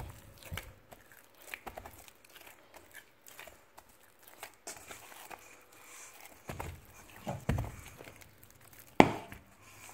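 Hand kneading soft yeast dough in a stainless steel bowl: irregular squishes, tearing and slapping noises, with a few dull thumps and one sharp knock about nine seconds in.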